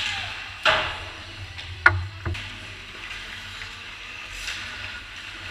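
Ice hockey sticks and puck clacking, with three sharp knocks in the first two and a half seconds, over a steady low hum in the rink.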